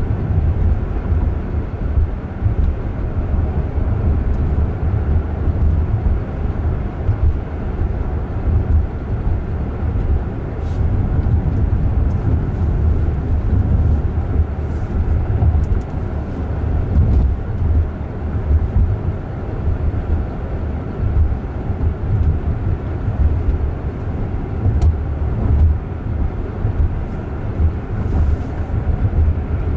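Road and tyre noise inside the cabin of a Jaguar I-Pace electric car cruising down a street: a steady low rumble with no engine note, and a few faint clicks.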